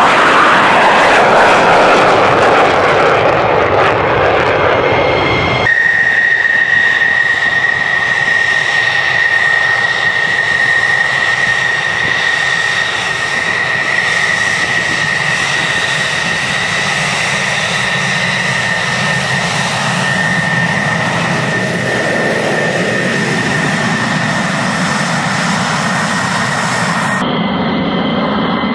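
F-16 Fighting Falcon jet engine noise. For the first few seconds there is a loud rush as the jet climbs away overhead. After an abrupt change, an F-16 runs on the runway with a steady high-pitched whine over the engine's rumble.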